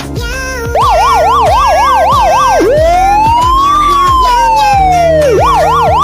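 Siren sound effect over background music. About a second in, a fast warbling yelp starts; it switches to one slow rise and fall, then returns to the fast warble near the end.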